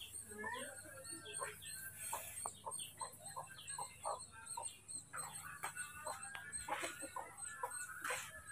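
Birds calling in the background: many short chirps and calls overlapping, several a second, with a thin high chirping running under them.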